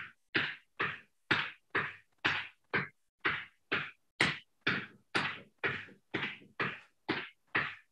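Footfalls of sneakers landing on a thin exercise mat over a wooden floor while marching in place with high knees, a steady beat of about two steps a second.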